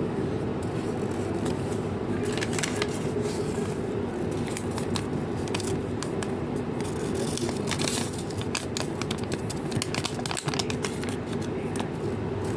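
Plastic blind-bag packaging crinkling and tearing as it is handled and opened, in many irregular sharp crackles starting about two seconds in, over a steady low background hum.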